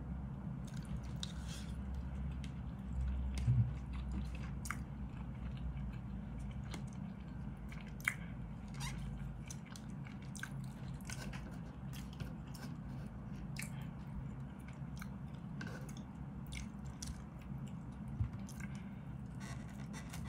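A man chewing mouthfuls of rice, fried eggplant and ham, with scattered light clicks and scrapes of a plastic fork and spoon in a plastic food tub. A steady low hum runs underneath.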